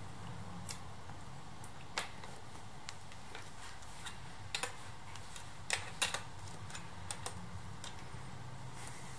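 Light, irregular metal clicks and taps of a wrench and small parts being handled while a sensor is fitted and bolted into a motorcycle's aluminium gearbox housing, with a cluster of louder clicks around the middle.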